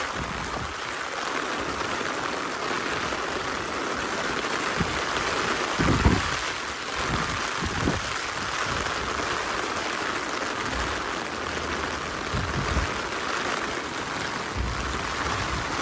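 Heavy rain falling, a steady hiss, with a few brief low thuds here and there.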